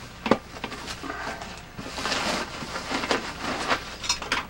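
Packaging being handled as a VCR is unpacked: a sharp knock about a third of a second in, then uneven rustling and crinkling.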